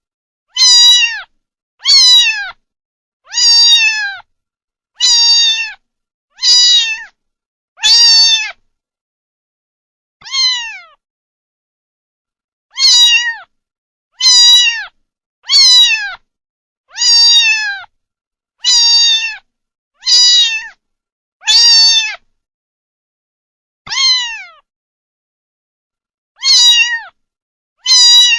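A kitten meowing over and over, short high meows that each fall in pitch, roughly one every second and a half, with a few longer pauses; between calls there is complete silence.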